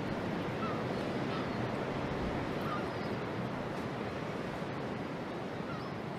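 Steady rushing noise of wind on the microphone and harbour water at the boat docks, with a few faint bird calls now and then.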